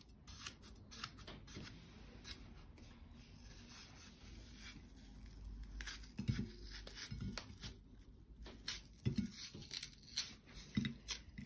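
A kitchen knife cuts a hand-held yellow watermelon wedge into chunks, making faint, crisp cutting clicks through the flesh. From about halfway on there are a few soft thumps.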